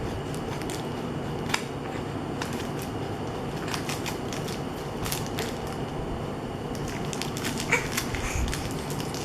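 Paper packaging of an envelope being handled and opened by hand: crinkling with scattered sharp crackles and snaps, the loudest about a second and a half in and near the end, over a steady low background hiss.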